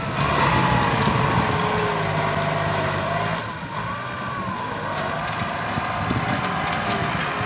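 Kubota tractor's diesel engine working hard as it pushes through brush, its pitch wavering with the load. The engine note eases briefly about halfway through.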